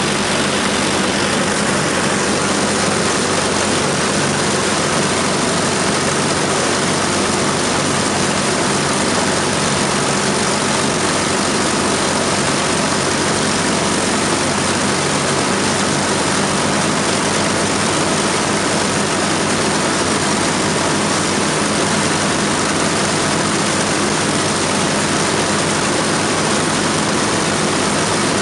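Four Merlin V12 piston engines of an Avro Lancaster bomber running together at a steady, unchanging speed during a ground run, with the propellers turning.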